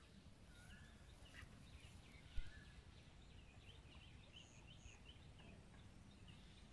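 Faint birds chirping, with a quick run of short chirps in the middle. About two and a half seconds in there is a single low thump, the loudest sound.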